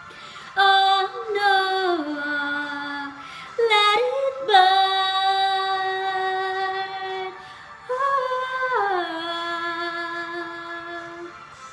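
A woman singing wordless held notes without accompaniment, each long note stepping or sliding down in pitch, with short breaks between phrases.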